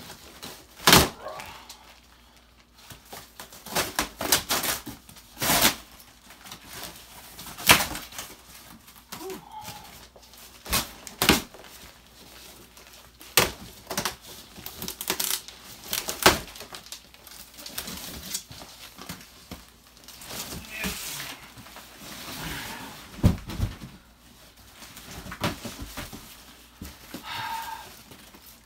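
A large cardboard box being torn open and pulled apart by hand: many short, sharp rips and knocks of cardboard at irregular intervals.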